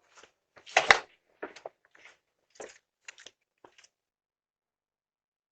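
A thump about a second in, then a run of short, uneven scuffs and knocks that stop abruptly a little under four seconds in.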